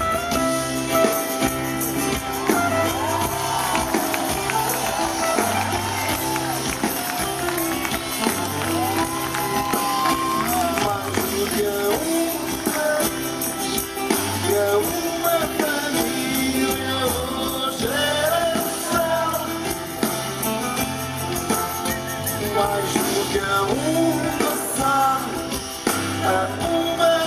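Live pop-rock band playing a song with acoustic guitars, drum kit and hand percussion, with singing over a steady beat, heard through the PA from within the audience.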